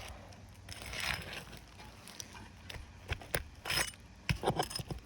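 Metal pry tool working under asphalt shingles to pull roofing nails: a scrape about a second in, then a run of sharp metallic clicks and clinks.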